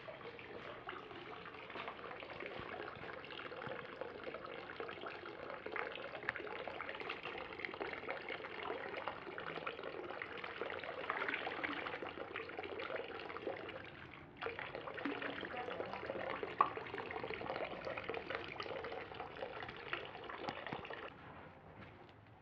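Water trickling from a bamboo spout into a stone purification basin, a steady splashing pour. It drops away near the end.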